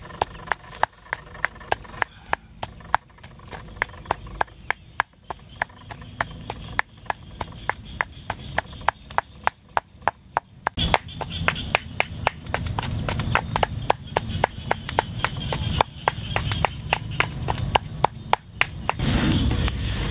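Pestle pounding chillies and garlic in a mortar: a steady rhythm of sharp knocks, about two to three strokes a second. A low rushing noise joins underneath about halfway through.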